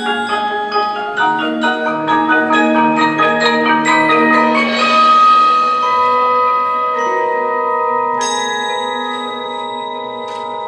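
Indoor percussion ensemble's front line of marimbas and vibraphones playing quick mallet notes, building to a loud swell about five seconds in, then settling into a long held chord that slowly fades.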